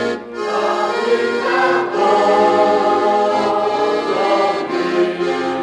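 Traditional Dunkirk folk song: an accordion playing with sustained sung voices, continuous music between lines of the lyrics.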